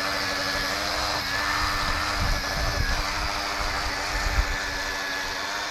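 Ryobi 18V cordless cultivator's electric motor running steadily with a thin high whine, its tines churning through grassy garden soil, with uneven low rumbling underneath.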